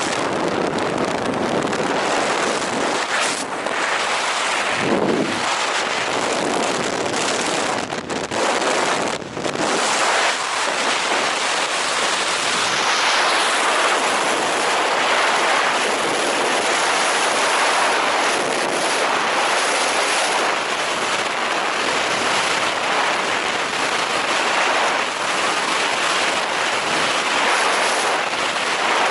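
Loud, steady rush of wind over a camera microphone, the noise of a skydiver's freefall, with a few brief dips in the roar between about three and nine seconds in.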